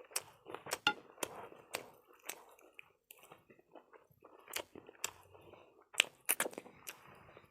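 Close-up chewing and biting of fried chicken wings: irregular sharp crunches and clicks several times a second, the loudest about six seconds in.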